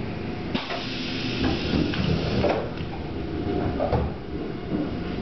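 Tobu 200 series electric train, running on the DRC 1720 series bogies and traction motors, starting to pull out of a station as heard from the vestibule: a low rumble of motors and wheels, with a hiss of rushing air from about half a second in to about two and a half seconds in.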